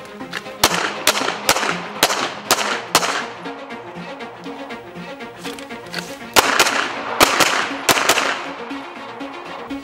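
Pistol fired in two quick strings of shots, about two a second, with a pause of a few seconds between the strings; background music plays underneath.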